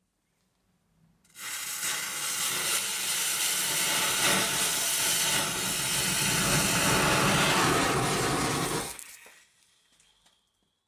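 Firework tube burning on the ground, blowing a jet of flame and sparks: a loud, steady hiss that starts suddenly about a second in, runs for about seven and a half seconds and dies away quickly.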